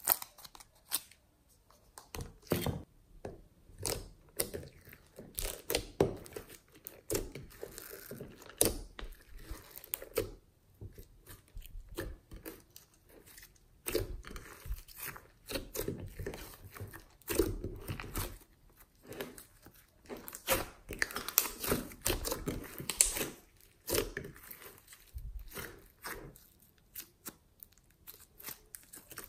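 Foamy glossy slime being kneaded, squeezed and pulled apart by hand, making irregular sticky pops and crackles.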